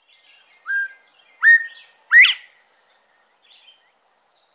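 Northern bobwhite whistling its 'bob-white' call, played from a recording: two short whistled notes, then a louder final note that rises steeply. Faint chirps of other birds sound behind it.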